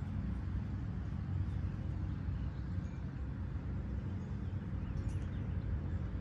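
Steady low outdoor rumble with no distinct events, plus faint high chirps about five seconds in.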